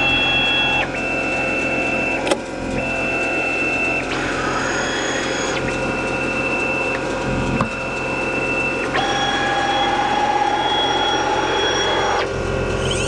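Stepper motors of a DIY CNC router driving the axes, whining at steady pitches that jump to a new pitch every second or few as each move changes speed, with two sharp clicks along the way.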